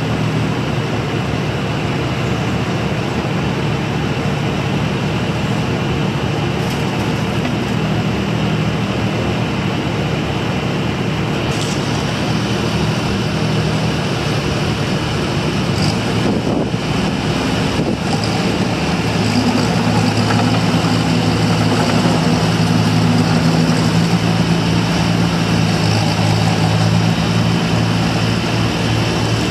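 1998 IHI 28J mini excavator's diesel engine running steadily as the machine is driven on its tracks and turned. About two-thirds of the way in, the engine note changes and grows a little louder.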